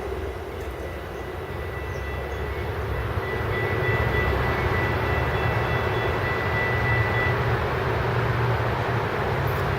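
Metrolink diesel train rumbling steadily, growing louder about three seconds in, with a thin high whine held for several seconds.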